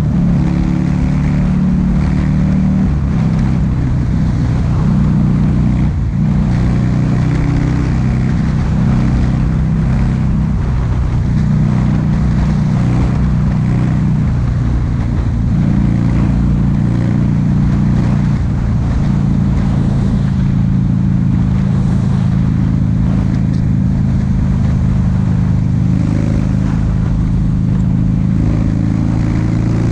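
Buell XB1200Ss's air-cooled V-twin running under way through an aftermarket Jardine exhaust. The engine note holds fairly steady, with small shifts in pitch every few seconds, over a rough low rumble.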